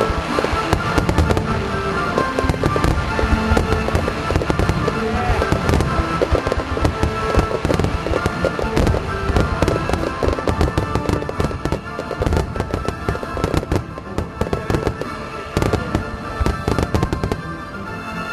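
Starmine fireworks display with shells bursting in rapid, dense succession, with music playing along. The bursts thin out a little near the end.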